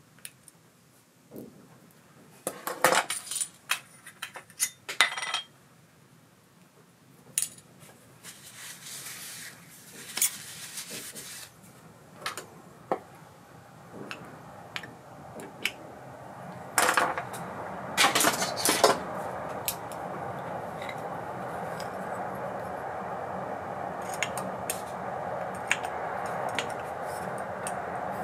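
Small metal parts and tools of an ABU Ambassadeur 4600 CA baitcasting reel clinking and clicking as the reel is taken apart. A steady noise builds up in the second half under the clinks.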